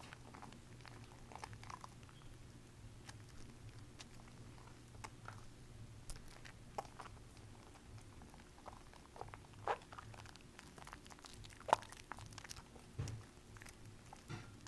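Bar soap being rubbed by hand in a tray of thick soap foam: faint wet squishing and crackling of bubbles, with scattered small clicks and a few louder ones in the second half.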